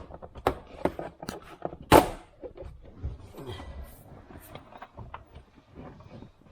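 Plastic interior trim in a 2015-2019 Chevy Tahoe's center console being pried loose with a trim pry tool: a run of irregular clicks and knocks, with one loud knock about two seconds in.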